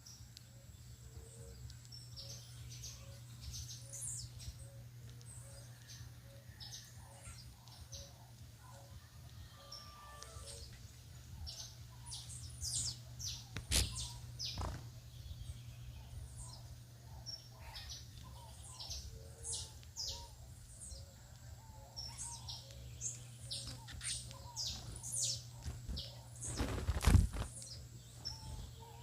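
Many small birds chirping, with short high calls coming thick and fast, over a steady low hum. A loud low thump comes near the end.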